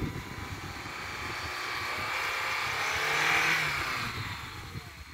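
Lada Niva's four-cylinder engine labouring as the 4x4 ploughs through deep snow toward the listener. Its pitch and loudness climb to a peak about three and a half seconds in, then drop away. A gusty low rumble of wind on the microphone runs underneath.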